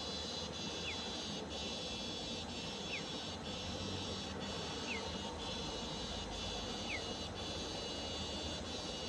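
Nightjar chick giving short, downward-slurred peeps about every two seconds, the calls of a hungry chick begging for its parent. Behind them, a steady shrill insect chorus that drops out briefly about once a second.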